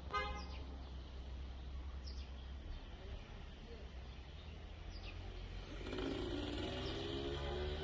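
Outdoor background noise with a steady low hum and a few short bird chirps. Pitched voices or music come in faintly near the end.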